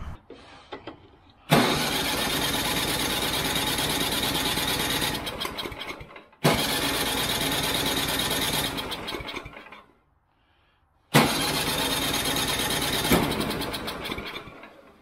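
Snowblower's 10 HP Tecumseh single-cylinder engine starting and running three times, each run lasting only a few seconds before it fades out and dies. It will not keep running off choke, the sign of the fuel-starved carburetor that the owner suspects.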